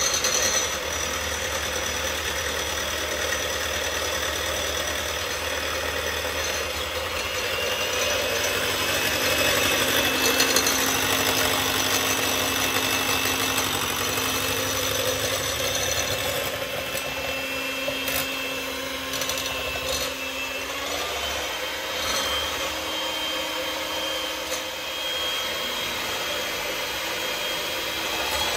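Electric hand mixer running steadily, its twin wire beaters whipping egg whites in a glass bowl to make them fluffy. The motor whine shifts a little in pitch now and then.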